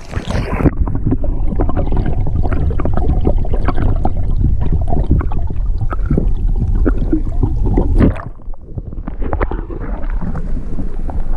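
Wind buffeting the microphone: a loud low rumble with scattered clicks and knocks over it. The rumble drops off sharply about eight seconds in, then picks up again more weakly.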